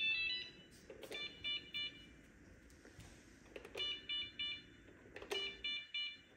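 iRobot Braava jet robot mop giving its error tones: quick runs of three or four high electronic beeps every couple of seconds, each run preceded by a click of its button being pressed. It is signalling a fault rather than starting to mop.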